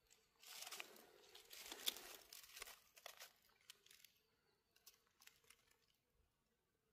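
Dry fallen leaves rustling and crackling as a gloved hand moves through the leaf litter, densest for the first few seconds, then a few scattered crackles.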